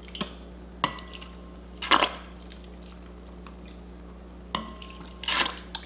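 Turkey baster squeezing and squirting liquid batter over a cut onion in a stainless steel bowl: two wet squirts about two seconds in and again near the end, with several sharp taps of the baster against the metal bowl. A low steady hum runs underneath.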